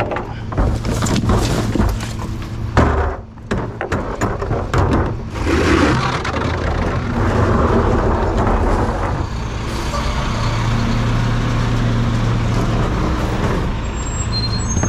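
Recycling collection truck running, with clanks and knocks over the first few seconds, then steadier running from about six seconds in.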